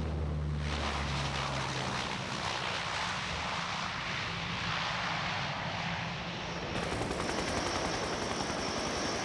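Lockheed C-130 Hercules turboprop engines running with a steady propeller and engine noise. A low hum fades out about two seconds in, and a high steady whine joins near seven seconds.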